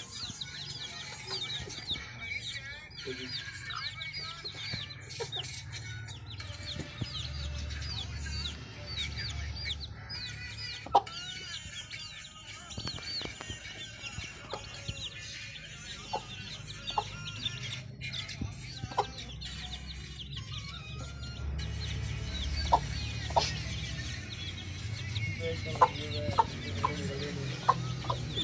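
A brood of Australorp chicks peeping, many short high calls in quick succession, with a black Aseel hen clucking low among them. Scattered sharp ticks come through, several near the end.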